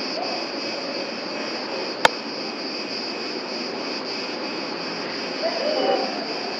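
A steady, high-pitched chorus of chirring summer insects, pulsing slightly. A single sharp click cuts through about two seconds in.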